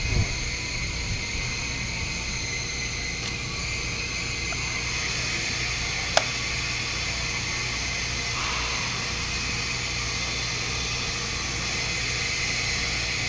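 Steady low machine hum under an even hiss, with one sharp click about six seconds in.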